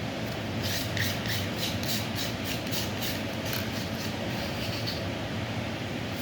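Pestle working in a mortar in quick rhythmic scraping strokes, about five a second, that stop a little after halfway, over a steady low hum.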